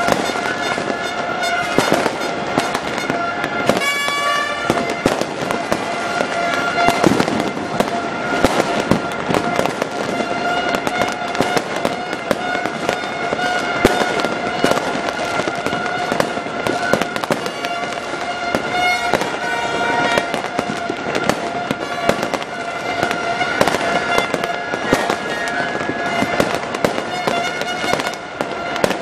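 Fireworks display: aerial shells bursting in rapid, continuous bangs and crackles, with a steady droning tone held underneath.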